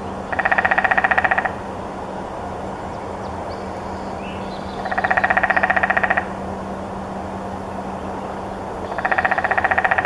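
Downy woodpecker drumming on a broken-off dead branch: three rapid rolls of about a second each, roughly four seconds apart, over a steady background hum.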